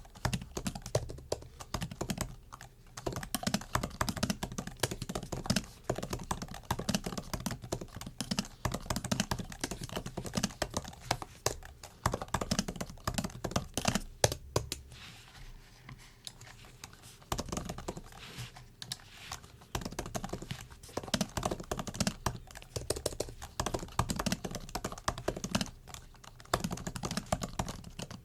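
Typing on a MacBook keyboard: rapid, irregular clicks of the low-travel keys, with a pause of about two seconds a little past halfway before the typing resumes.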